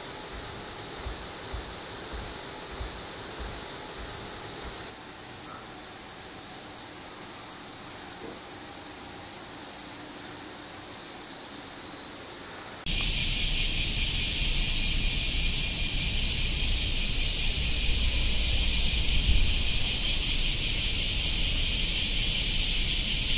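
Summer insects in a run of short takes. First a faint hum, then a single high, steady insect trill for about five seconds. From about thirteen seconds in comes a loud, dense cicada chorus with a fast, even pulsing shimmer.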